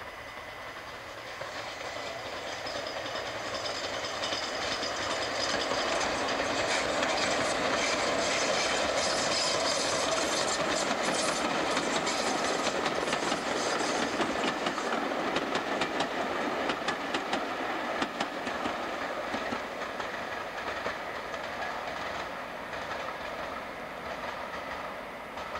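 A steam train hauled by GNR N2 class 0-6-2 tank locomotive No. 69523 passes, its sound swelling to a peak about halfway and then fading, with wheels clicking over the rail joints as the train goes by.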